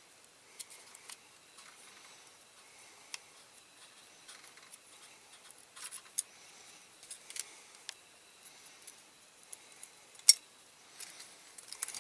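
Small, sharp clicks and taps of tools against a diecast toy car and its small parts as it is taken apart by hand, with one loud click about ten seconds in.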